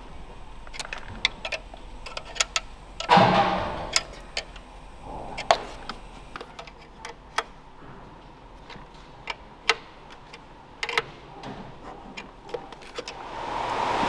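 Irregular sharp clicks and light metallic clinks of hand tools and engine parts being handled in a car's engine bay, with one louder clank about three seconds in. Heavy rain noise swells in near the end.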